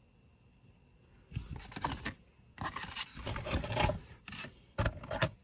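A hand rummaging through a wooden box of metal costume jewelry, brooches scraping and clinking against one another and the wood. It comes in three stretches, starting about a second in.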